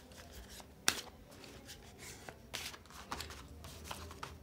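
A deck of fortune-telling cards being shuffled by hand: soft scattered clicks and rustles, with one sharper snap about a second in.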